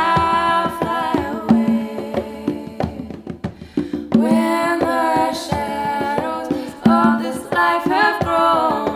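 Music: singing over drum and percussion beats.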